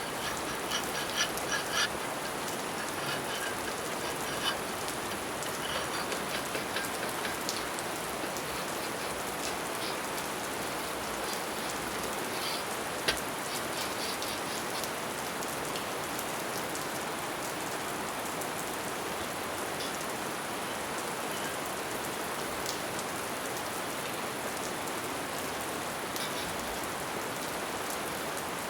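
Steady rain falling, an even hiss, with scattered light clicks and taps in the first several seconds and one sharp click about 13 seconds in.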